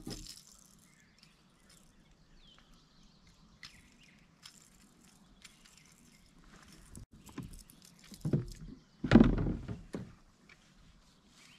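Small clicks and rustles of fishing gear being handled in a plastic kayak, then two louder thuds about eight and nine seconds in, the second the louder.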